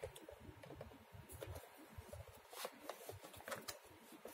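Faint handling noise and a few soft clicks from an RCA VHS-C camcorder as its flip-out LCD screen is unlatched and swung open.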